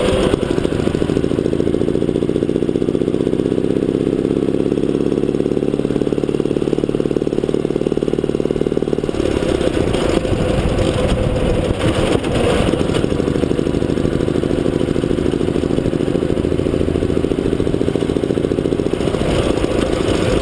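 Old military motorcycle engine running, its pitch slowly rising over the first several seconds, then changing abruptly about nine seconds in, with more revving later.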